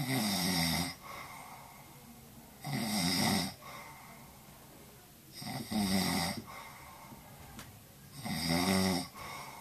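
A man snoring in his sleep: four snores about three seconds apart, each under a second long.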